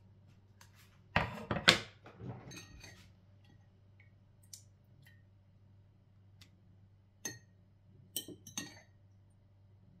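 A metal fork clinking and scraping against a glass jar while pickled red peppers are fished out of it. A loud clatter comes about a second in, then scattered single clinks, and a short run of clinks near the end.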